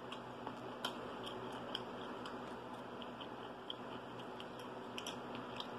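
Quiet chewing with small crunches and clicks as fried chicken wings are eaten and picked apart with the fingers, over a steady low hiss.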